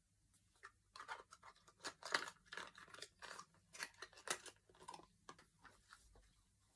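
Packaging being handled: irregular crinkling and crackling strokes, starting about half a second in and dying away near the end.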